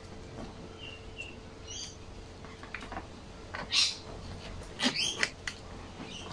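Hand handling noise as a new carburetor and its plastic air-filter base are pushed onto the mounting screws of a Ryobi RLT26CDSN trimmer's intake. A couple of faint short squeaks come in the first two seconds, then a few short clicks and scrapes about four and five seconds in.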